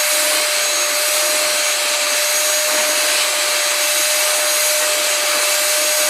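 Vacuum cleaner running steadily, a constant motor whine over the even rush of its suction.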